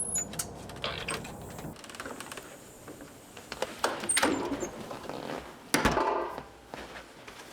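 A series of scattered knocks, clunks and rustling handling sounds, with the heaviest thud about six seconds in.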